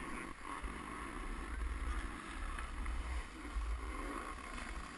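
Wind buffeting an action camera's microphone as a skier moves downhill, an uneven low rumble over the steady hiss of skis sliding on packed snow.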